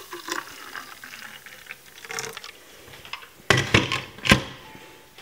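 Thick, frothy blended iced drink being poured from a glass blender jug into a drinking glass, with a light watery patter and small clinks. About three and a half seconds in come a few loud sharp knocks, the loudest a little after four seconds, as the jug or glass is knocked against the glass or worktop.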